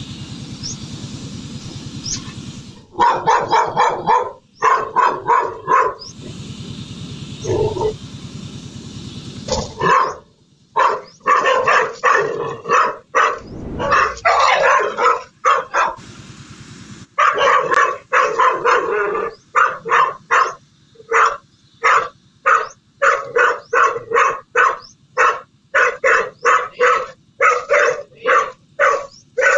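A dog barking in quick runs of short barks, about two a second, while confronting a snake. The barking starts about three seconds in.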